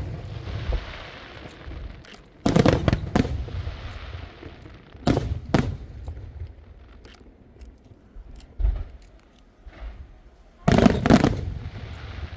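Aerial fireworks shells bursting overhead: loud booms in clusters about two and a half, five and eleven seconds in. Between the bursts, a fizzing crackle trails off, with a few faint scattered pops.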